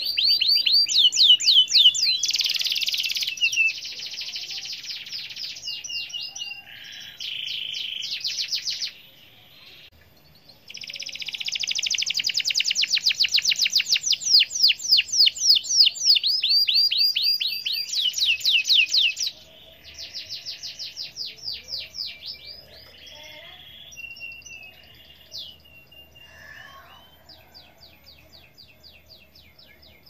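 White domestic canary singing fast rolling trills of rapidly repeated notes in long phrases, with a short break about nine seconds in; after about nineteen seconds the phrases turn quieter and sparser.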